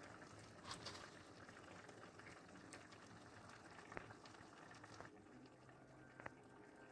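Faint bubbling of a pot on the boil, with a few small pops.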